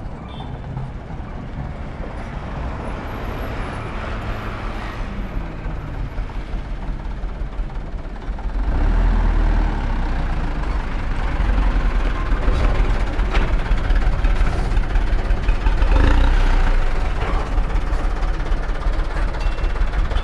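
Mitsubishi Colt Diesel dump truck's diesel engine running as the truck drives up and onto a weighbridge, growing louder about eight seconds in as it comes close.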